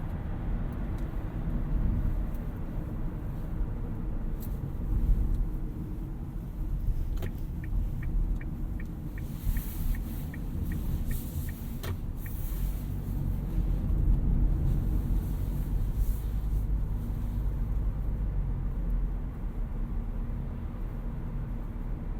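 Steady low rumble of a 2018 Toyota Auris Touring Sports 1.8 Hybrid driving along the road. Midway a turn indicator ticks about three times a second for roughly five seconds, with a sharper click as it starts and another as it stops.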